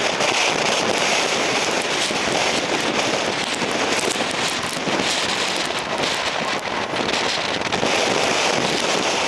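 Typhoon wind and heavy rain, a steady rushing noise with dense crackling of raindrops striking close to the microphone.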